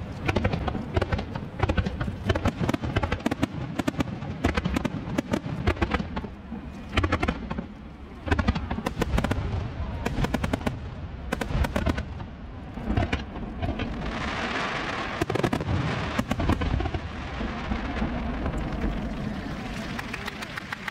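Aerial fireworks bursting in a rapid, dense run of bangs and crackles, turning into a steadier crackle for the last several seconds.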